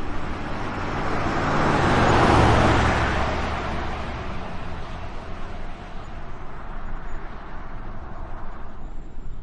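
A road vehicle driving past: a rumble and tyre noise that swells to its loudest about two seconds in, then fades away, leaving a steady low background hum.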